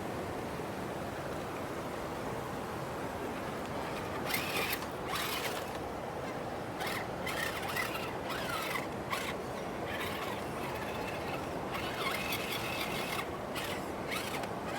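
A scale RC rock crawler driving in short bursts, its electric motor and gears whining and its tyres scraping over rock, starting about four seconds in and stopping and starting several times. Under it runs the steady rush of a waterfall.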